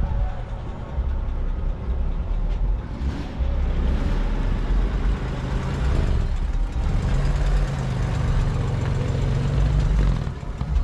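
A motor vehicle's engine running close by, a steady low-pitched sound that holds one note for a few seconds near the end.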